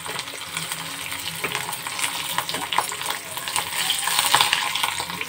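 Spice tempering frying in hot refined oil in a kadai: dried red chillies, mustard and cumin seeds, asafoetida, curry leaves and just-added chilli powder sizzle and crackle with many small pops. The sizzle swells louder about four seconds in.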